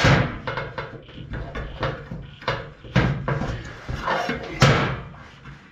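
Irregular knocks and clunks of a chrome steel handlebar and small items being handled against a stainless-steel workbench, with about five or six sharp hits.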